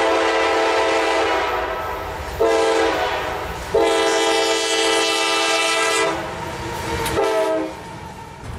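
Freight locomotive's multi-note air horn blowing four blasts, long, short, long, short, over the low rumble of the approaching train: the horn signal sounded for a grade crossing.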